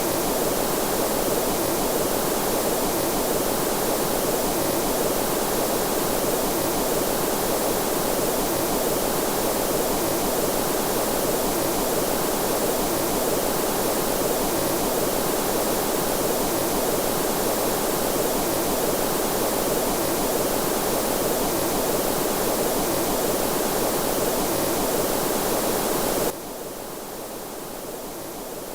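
Steady synthesized rushing noise, weighted toward the low middle and without any tones or clicks, resembling a waterfall or stream; it drops suddenly to a softer level near the end.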